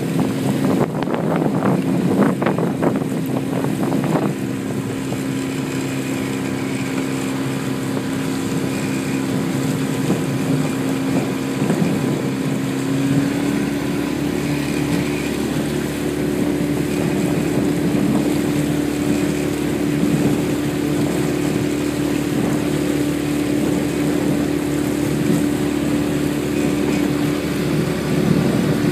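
Motorboat engine running steadily close by, its pitch rising a little about halfway through as it speeds up, with wind buffeting the microphone.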